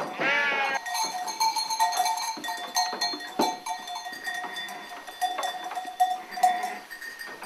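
A sheep bleats once, a quavering call, at the very start. After it come faint steady tones and scattered sharp clicks.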